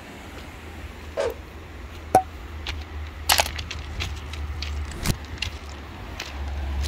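Footsteps crunching on railway ballast stones: irregular sharp crunches and clicks about twice a second over a steady low rumble of wind on the microphone.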